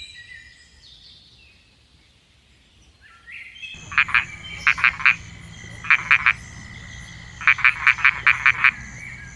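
A cartoon sound effect, starting suddenly about four seconds in: quick runs of sharp, high chirps in groups of three to seven, over a steady high tone, cutting off abruptly at the end.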